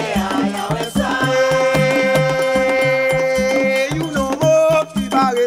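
Music with a steady beat of drums and bass under a sung melody; the singer holds one long note from about a second in until nearly four seconds, then the melody moves on.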